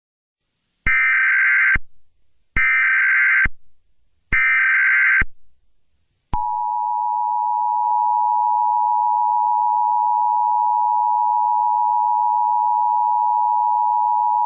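Emergency Alert System tones: three short bursts of SAME header data, each a harsh electronic buzz about a second long, then the steady two-tone EAS attention signal held for about eight seconds. The tones announce an emergency broadcast message.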